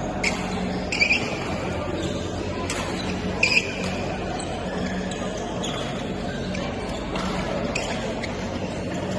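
Badminton rackets striking a shuttlecock in a rally: sharp, irregular hits about every second or so.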